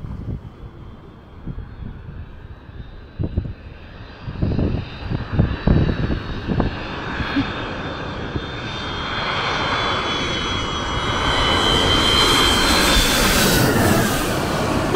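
Jet airliner flying low overhead: its engine noise builds from a distant rush to a loud roar with a high whine that dips slightly in pitch as it passes, loudest near the end. A few low thumps come in the first half.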